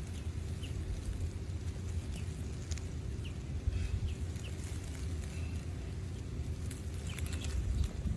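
Outdoor ambience: a steady wind rumble on the microphone, with a few faint, short bird chirps falling in pitch in the first half and a few light clicks.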